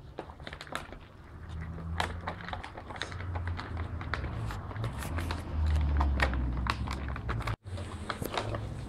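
Plastic dog-food bag crinkling and crackling in irregular sharp bursts as puppies chew, paw and push their heads into it, over a low rumble.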